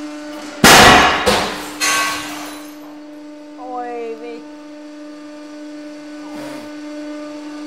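Brass cylinder failing under a 150-ton hydraulic press: a sudden, very loud bang as it shears and a piece shoots out, followed within about a second by two more crashes with ringing as the flying piece breaks through window glass. The press's hydraulic pump hums steadily underneath.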